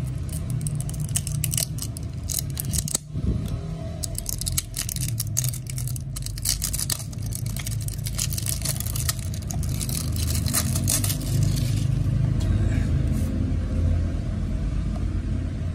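Plastic shrink wrap being slit with a blade and peeled off a small cardboard box, crinkling and crackling for most of the first eleven seconds, then lighter handling of the box. A steady low rumble runs underneath.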